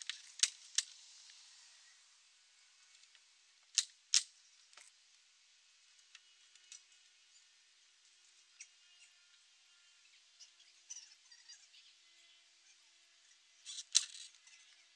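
Metal bar of a homemade wooden salmon ladder clicking against its supports as someone hangs from it: a few sharp clicks, a quick pair within the first second, another pair about four seconds in, and a short cluster near the end, over faint outdoor background.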